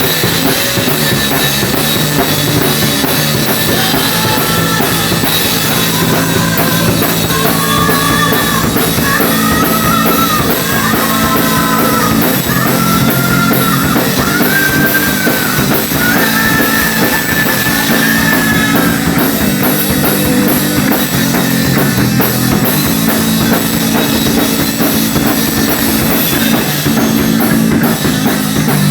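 Live rock and roll band playing loud and steady, with drum kit, bass and electric guitar. Through the middle a high melodic lead line bends and swoops over the band.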